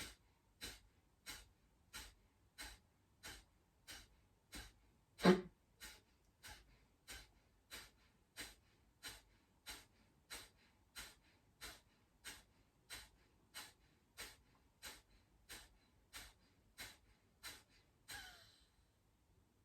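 Kapalbhati breathing: about thirty sharp, forced exhalations through the nose at a little under two a second, each pushed out by a snap of the abdominal muscles, with passive inhales between. One, about five seconds in, is louder and carries a slight vocal noise. Near the end comes one longer, fading breath out.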